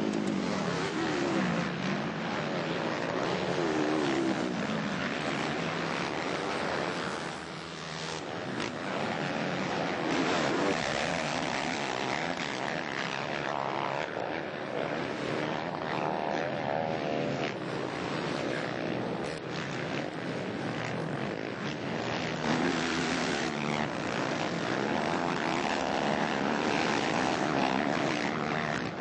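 Several four-stroke motocross bikes racing, their engines revving up and down in overlapping rising and falling pitches as they go by.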